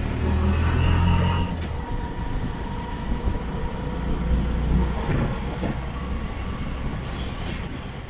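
Tuk-tuk (auto-rickshaw) running on the road, heard while riding in it: a steady engine and road rumble, heaviest in the first second and a half.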